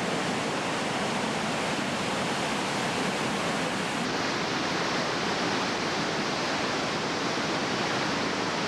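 Whitewater rapid with a 10-foot vertical drop: river water rushing steadily over the falls.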